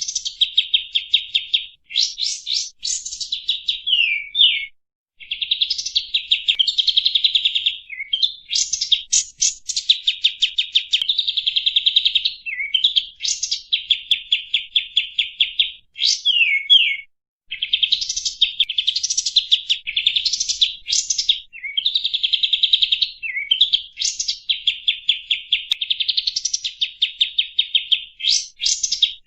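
Kapas tembak bulbul singing: long runs of fast, rattling notes broken by quick rising and falling whistles, with only short pauses between phrases.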